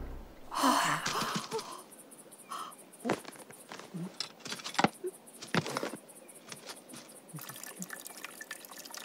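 Cartoon sound effects for handling gear: a short rustle about a second in, then scattered light clicks and small drip-like pops as the backpack is rummaged and the camera with its long lens is set up.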